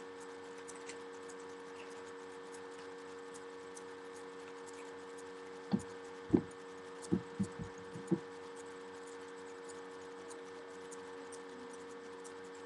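Steady electrical hum made of a few held tones, with a cluster of six or so short, dull knocks and bumps about halfway through, as objects are handled and set down on a wooden table.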